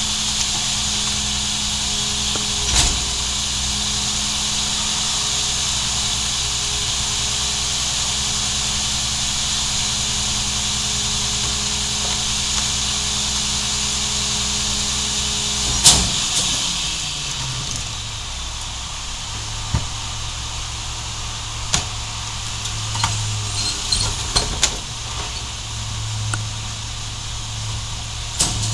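Mack MR garbage truck with a McNeilus rear-loader packer running its compaction cycle: the engine held at raised revs to drive the hydraulics, with a steady whine and hiss. About halfway through a loud clunk ends the cycle and the engine drops back to idle. Near the end, knocks and rattles as a cart of yard waste is tipped into the hopper.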